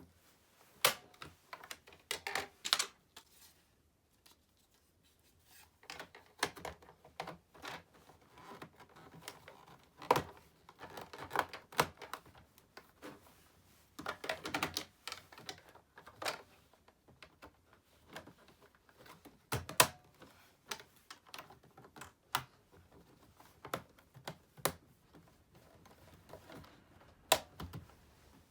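Hard plastic parts of a Roomba 780 robot vacuum being handled while it is taken apart or cleaned: irregular clicks, knocks and scraping, with a short quiet pause a few seconds in.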